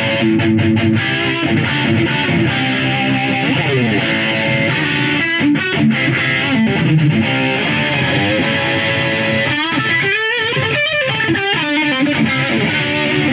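Electric guitar played through a Roland GR-D distortion unit on its Poly Distortion setting: distorted chords and sliding notes, with quick wavering lead notes about ten seconds in.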